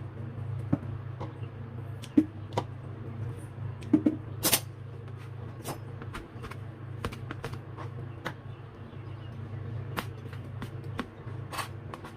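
Scattered clicks and knocks of kitchen utensils over a steady low hum, with a few sharper knocks about two and four seconds in.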